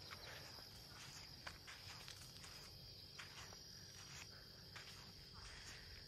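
Crickets chirring faintly and steadily in the night, with a few soft scattered clicks.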